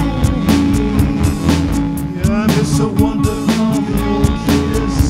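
Indie rock song between vocal lines: a drum kit keeps a steady beat of about two hits a second under electric guitar and bass.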